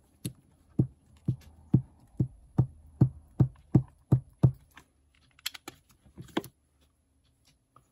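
A stamp and ink pad tapped together about ten times in a quick, even rhythm as the stamp is inked, followed by a few lighter clicks of the pad or block being handled.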